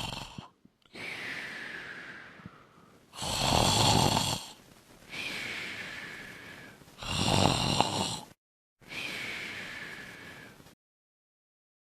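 A person snoring: three loud snores about every three and a half seconds, each followed by a quieter, longer breath. The sound stops abruptly about eleven seconds in.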